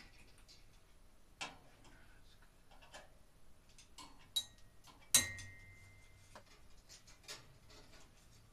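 Scattered small clicks and knocks of hand work on a metal ceiling light fixture, about four of them plainly heard. The loudest comes about five seconds in and is followed by a brief metallic ring.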